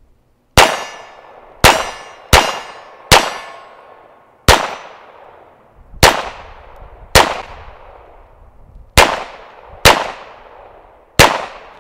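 Ten single shots from a GSG 1911-style .22 LR semi-automatic pistol, fired at an uneven pace, each a sharp crack followed by a ringing decay.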